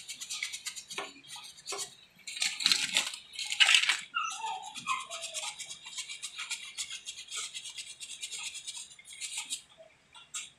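A brush scrubbing caked grease and mud off an air-cooled motorcycle engine in quick, scratchy back-and-forth strokes, louder for a stretch a few seconds in.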